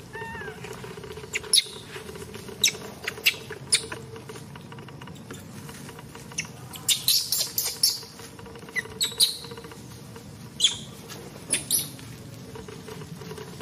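Baby macaque giving short, sharp high-pitched squeaks, a dozen or so scattered through, coming thickest about seven to eight seconds in. These are the distress cries of an infant being handled roughly by an adult female.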